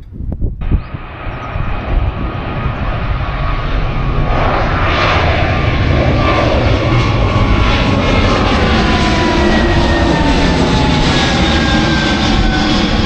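Airplane flying low overhead. Its engine noise builds into a loud, steady rush from about four seconds in, with whining tones that fall in pitch as it passes.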